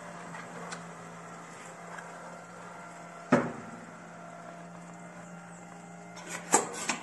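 Compact edge-banding machine running with a steady hum as an MDF panel is fed through it, pressing edge tape onto the panel's edge. A sharp knock comes about three seconds in, and a few quick knocks and clatters near the end.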